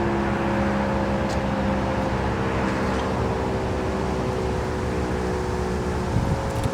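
Model 5 outdoor warning siren sounding, a steady chord of several held pitches with a low rumble underneath.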